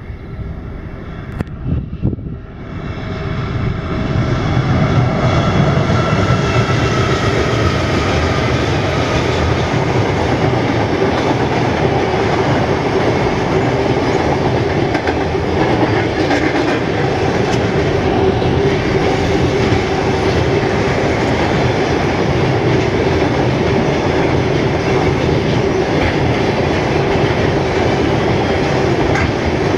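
Intermodal freight train, led by two NR class diesel-electric locomotives, crossing a steel girder viaduct: the sound builds over the first few seconds as it nears, then holds as a steady, loud rumble and clickety-clack of container wagons rolling over the bridge. Wind buffets the microphone at the start.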